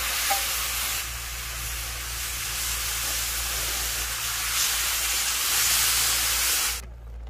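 Beef bulgogi with onions and sauce sizzling on a hot round griddle, a steady hiss that cuts off suddenly near the end.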